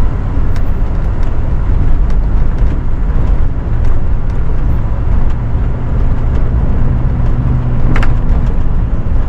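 SUV driving along a sandy desert dirt trail: a steady low rumble of engine and tyres, with scattered clicks and knocks, one sharper knock near the end.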